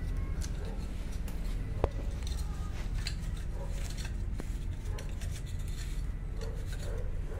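Light metallic clicks and clinks from handling the compressor's crank and connecting-rod parts, with one sharp click about two seconds in, over a steady low rumble.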